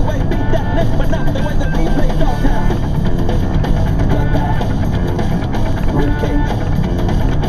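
Rock song playing on the radio, with a steady drum beat.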